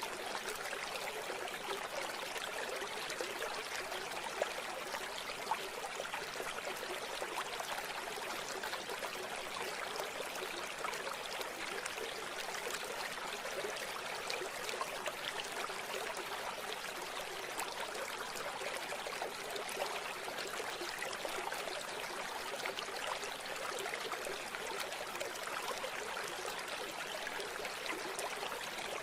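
River water flowing in a steady, even rush and babble, with almost no deep low end.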